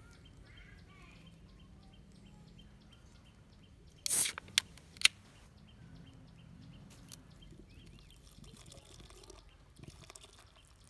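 Aluminium beer can being opened: a sharp pop with a short hiss about four seconds in, then two sharp clicks of the tab. Near the end, beer starts pouring from the can into a muddy, water-filled hole, with faint bird chirps behind.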